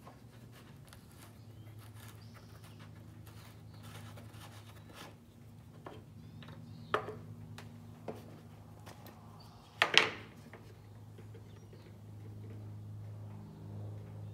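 Paint cans and a gravity-feed spray gun's cup handled on a workbench while clear coat is mixed into the cup: a few light knocks and one loud clatter about ten seconds in, over a steady low hum.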